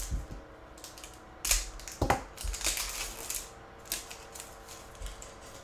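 Foil wrapper of a 2022 Panini Rookies and Stars football card pack crinkling and tearing as it is ripped open by hand, in a few short bursts that are busiest from about two to three and a half seconds in.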